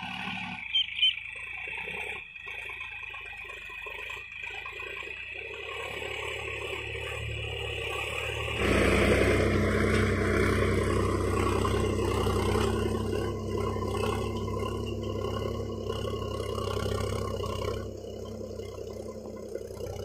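Sonalika RX 47 4WD tractor's diesel engine running under load as it drags a five-tine plough through the soil; much louder from about eight seconds in until near the end. Two brief sharp clicks about a second in.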